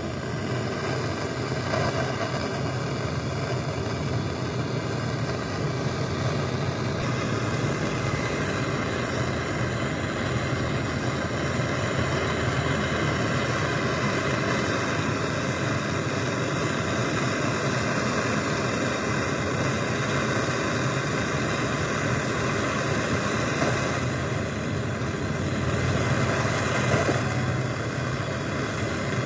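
Gas brazing torch flame burning steadily on a copper filter-drier and capillary-tube joint, a continuous even rushing noise that swells a little near the end as the brazing rod goes in.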